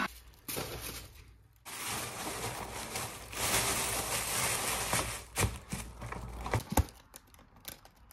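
A takeaway bag crinkling and rustling as it is pulled open around a fried-chicken box, with a couple of sharp clicks from the box in the second half.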